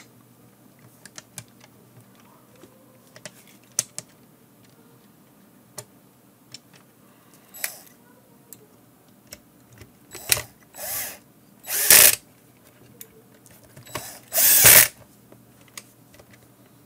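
Cordless drill-driver running in a few short bursts, driving self-tapping case screws into a plastic multimeter case. Before the bursts there are scattered small clicks and taps of the case and screws being handled.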